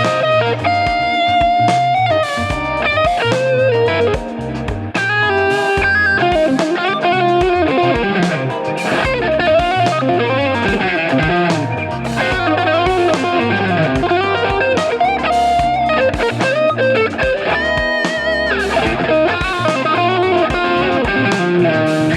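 Electric guitar fitted with Wilkinson high-output ceramic pickups, played continuously as a lead line with many string bends through an amplified, lightly driven tone.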